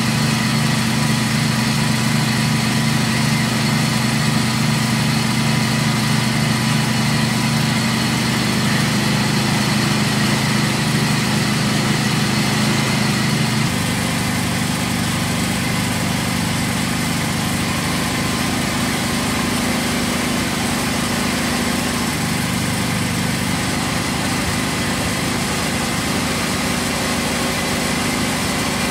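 Peanut grinding machine running steadily, a constant engine-like drone as the grinder extrudes ground peanuts. About halfway through the drone becomes a little quieter and its tone shifts.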